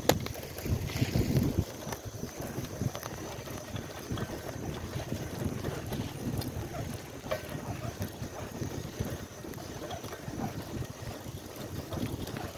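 Wind buffeting a handheld phone microphone over the rolling rumble of a bicycle ridden on asphalt with nearly flat tyres. A sharp knock comes right at the start, and a louder rumble follows about a second in.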